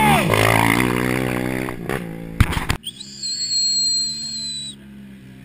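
An off-road rally vehicle's engine running at high revs as it passes close by, its pitch falling as it goes past. After a few sharp clicks the sound cuts abruptly to a high, steady whistling tone lasting about two seconds.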